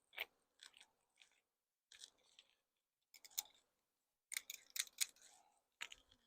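Faint, scattered short crackles and clicks, most closely bunched about four to five seconds in, with near silence between them.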